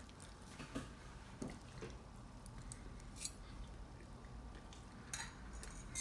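Soft chewing of steamed broccoli close to the microphone: a few small crunches and wet mouth clicks, with a light tap of the fork on the dish near the end.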